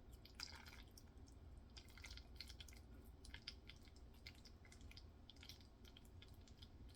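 Faint wet clicks and smacks of open-mouth chewing on a soft, mushy food mix, irregular and many.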